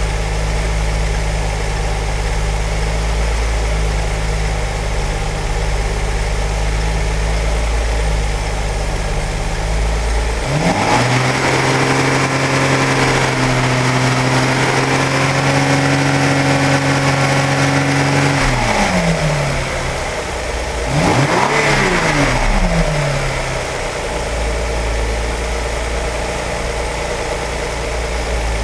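1997 Cadillac Catera's 3.0-litre V6 engine idling, then revved up about ten seconds in and held for about eight seconds before dropping back. It is blipped once more briefly, then settles back to idle.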